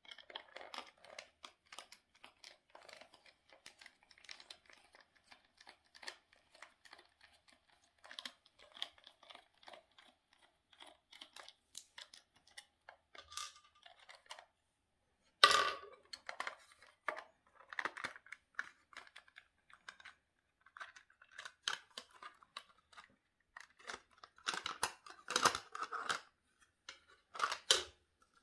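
A screwdriver turning a screw out of a plastic toy's battery base: a long run of fine scratchy clicks. Then sharper plastic clicks and knocks as the plastic case is handled and pulled open, the loudest about halfway through and a cluster near the end.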